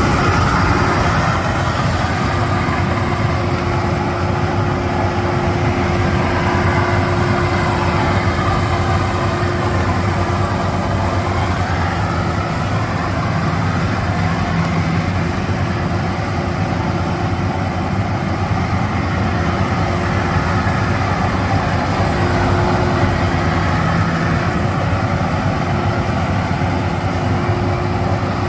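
Rice combine harvester running steadily, its engine and threshing machinery giving a constant hum with a thin high whine that comes and goes.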